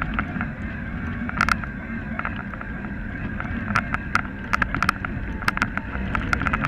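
Bicycle rolling over a gravel track: a steady rumble of tyres on gravel and wind on the microphone, with frequent sharp rattling clicks from the bike jolting over the surface.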